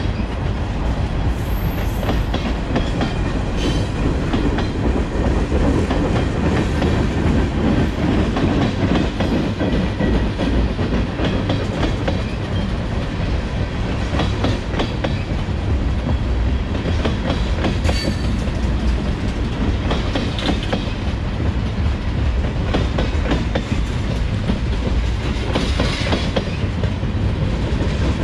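Freight train cars rolling steadily past, a continuous low rumble with the wheels clacking over rail joints.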